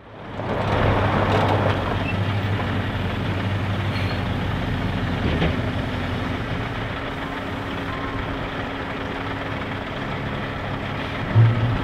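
Scania V8 diesel truck engine running steadily while the tipper trailer unloads milled asphalt. A steady higher hum joins a few seconds in, and there is a brief louder swell near the end.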